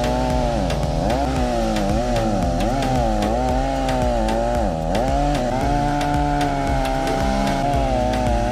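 Chainsaw running, its engine pitch dipping and coming back up several times in the first half as it takes load in the cut, then holding steadier.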